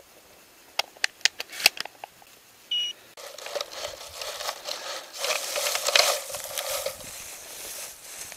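A quick run of sharp clicks and clacks from a shotgun being handled after firing. About three seconds in comes a short electronic beep, followed by a steady rustling hiss that swells a little in the middle.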